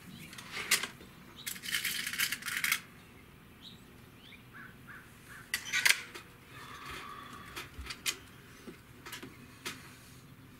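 A .22 Hatsan 95 Vortex gas-piston break-barrel air rifle being cocked and loaded: the barrel is broken open with a drawn-out rattly cocking stroke, then comes a series of metallic clicks and clacks as it is loaded and locked shut. The loudest snap comes about six seconds in.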